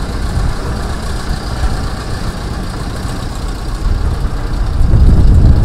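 Vintage Scania-Vabis truck's engine running at low speed as the truck drives slowly past. The low rumble grows louder near the end as it comes close.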